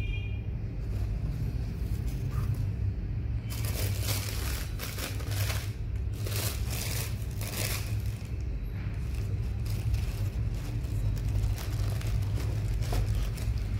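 Tissue paper crinkling and rustling as the wrapping inside a cardboard shoebox is handled and folded back. It is densest from about three and a half to eight seconds in, with lighter handling after. A steady low rumble runs underneath.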